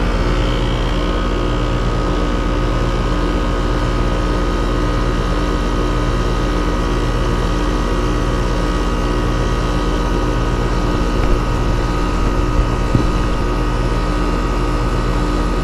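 Trane XR heat pump outdoor unit running steadily in cooling mode, its compressor humming under the condenser fan's drone. A few light clicks come later on.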